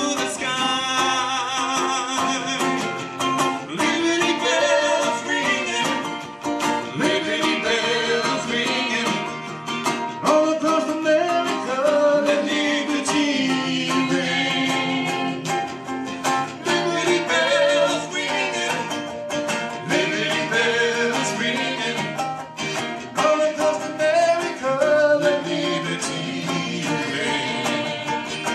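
Live performance of a patriotic song: singing over guitar accompaniment.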